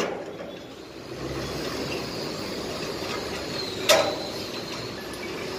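Steady background noise with one sharp knock about four seconds in, from a steel scaffold tube being handled at its clamp coupler.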